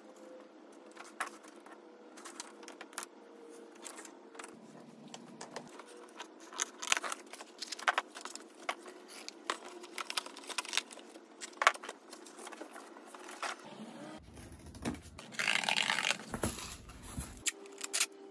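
Cardboard being handled and cut with scissors: scattered rustles, scrapes and snips. Near the end comes a noisy stretch of about two seconds, clear packing tape being pulled off its roll.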